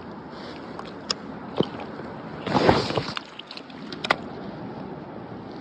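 Steady rush of river water, with a few sharp clicks and a brief louder scuffling rustle about two and a half seconds in.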